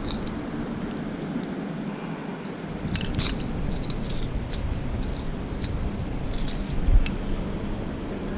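Metal fishing pliers clicking and scraping against a lure's treble hooks while unhooking a small striped bass. A cluster of sharp clicks comes about three seconds in, and a dull thump near the end.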